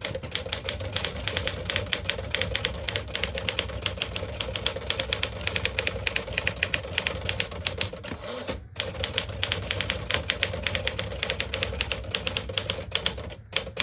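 Smith Corona 5-series tower manual typewriter being typed on fast: a rapid, continuous clatter of keystrokes. The typing breaks off briefly about two-thirds of the way through, then resumes and stops just before the end.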